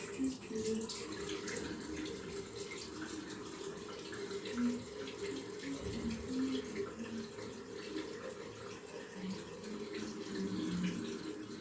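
Bathroom sink tap running steadily, with irregular splashing as water is scooped up by hand to wet the face.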